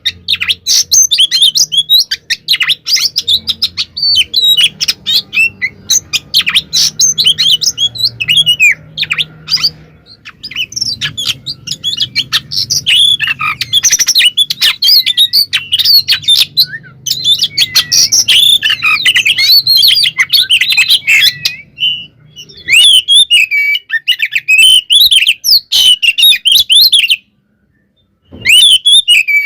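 Oriental magpie-robin singing a fast, unbroken stream of varied chirps and whistles. It cuts out abruptly for about a second near the end, then carries on.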